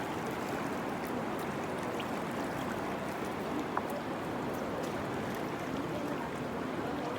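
Steady rush of a river in flood, its swollen water flowing hard.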